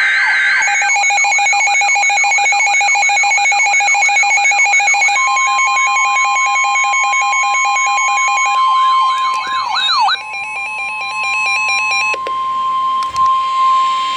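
Layered emergency-alert tones: a siren warbling up and down about three times a second over rapid steady beeping tones, joined about five seconds in by a steady single-pitch weather-radio alert tone. The siren stops about ten seconds in, leaving the steady alert tone with short bursts of pulsing tones and a couple of clicks.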